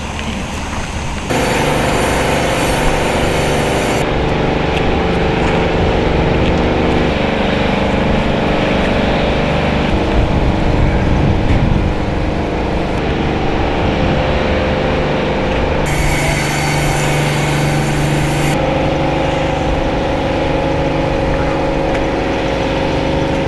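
The launch-pad erector's machinery runs with a steady mechanical hum of several held tones while the Soyuz-FG rocket is raised to vertical. The sound shifts abruptly a few times.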